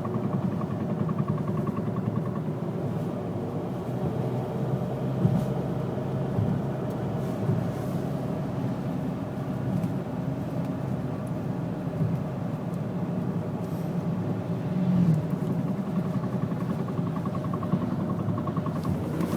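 VW Jetta TDI driving, with steady engine and road noise and occasional clunks from the front end, the loudest about five seconds in and fifteen seconds in. The clunking comes on when the car slows and goes away under light throttle; the owner wonders whether it is a CV joint.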